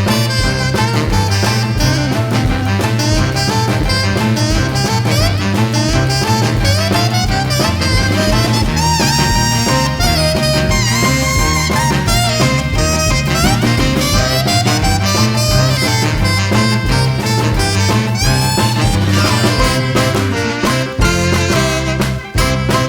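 Background music: up-tempo swing with brass and a steady beat.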